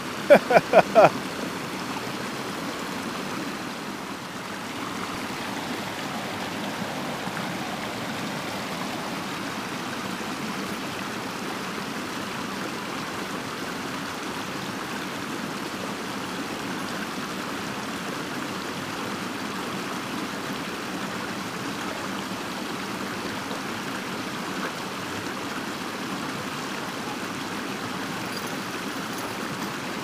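Shallow, rocky creek rushing steadily over small rapids and ledges. A few short, loud voice-like sounds come in the first second.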